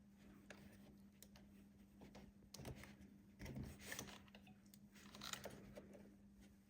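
Faint crinkling and rustling with scattered small clicks, loudest around the middle, over a low steady hum.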